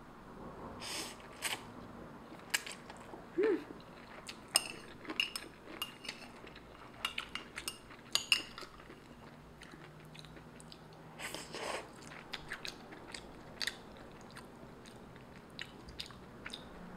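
Close-miked eating of instant fried noodles: chewing and a few slurps. Metal chopsticks tick against the bowl.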